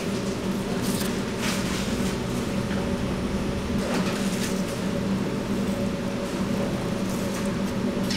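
Steady machine hum of kitchen equipment, with a few soft light taps in the first half as minced garlic and chopped herbs drop into a stainless steel bowl of diced tomatoes.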